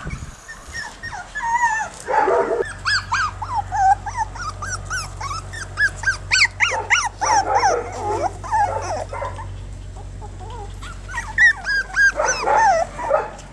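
A litter of one-month-old Jack Russell Terrier puppies yipping and whining as they play-fight, with many short, high calls overlapping. The calls come in busier flurries about two seconds in, in the middle, and again near the end.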